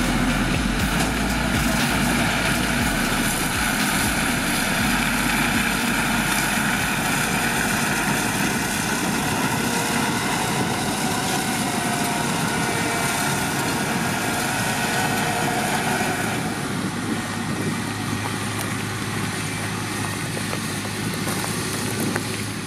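Holmer T4-30 sugar beet harvester's large diesel engine and machinery running steadily. The sound shifts about three-quarters of the way through, with a steadier low hum and less high-end noise.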